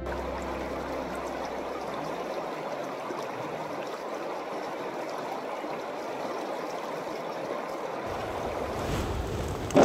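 River water flowing in a steady, even rush. Near the end a low rumble joins, then a single sharp knock.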